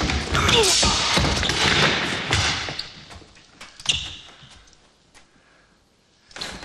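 Sword duel on a wooden floor in a large hall: feet thumping and scuffing on the boards, with blows and clashes. A sharp ringing clash comes about four seconds in, then the sound falls almost silent.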